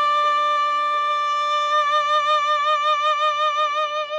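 A woman singer holds a long high final note, steady at first and then opening into a wide vibrato about halfway through, over sustained accompaniment chords that change a few times underneath.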